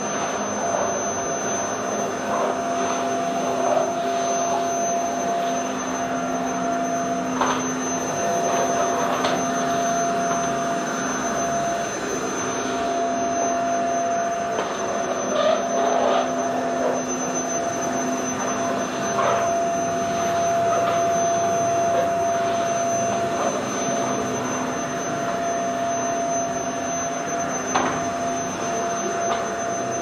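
Vacuum cleaner running steadily: a continuous motor and airflow hum with a thin high whine over it, and a few faint brief crackles.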